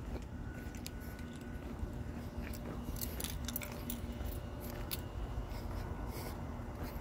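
Someone walking along a concrete path with a phone: scattered light clicks and jingles, thickest in the middle, over a low rumble and a faint steady hum.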